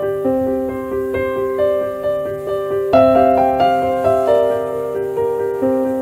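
Background piano music: a melody of struck notes that ring on and overlap.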